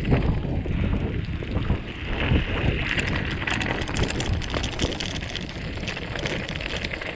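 Wind buffeting the microphone over a rough, crackling rumble, like bicycle tyres running over a rocky dirt trail.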